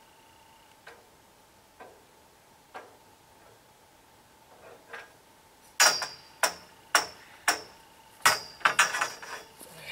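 Metal tent-frame pipes knocking against each other as a pipe is worked into its corner fitting: a few faint ticks, then from about halfway on a run of about eight sharp metallic clanks with a short ring, roughly two a second.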